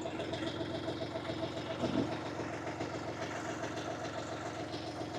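UHI 254 compact tractor's diesel engine idling steadily.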